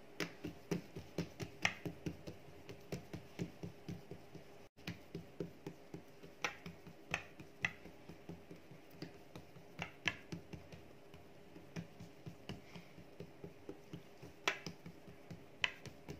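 Fingertips patting and pressing a soft tortilla dough disc flat against a hard tabletop to stretch it thin: a run of soft, quick taps, about three a second at first, then more spaced out.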